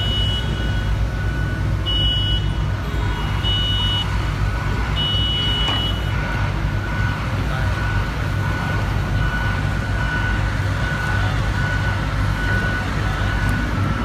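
Diesel engine of a John Deere mini excavator running steadily, with intermittent high electronic beeping over it.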